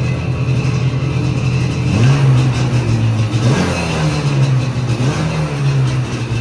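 An engine running and being revved, its pitch rising and falling back three times.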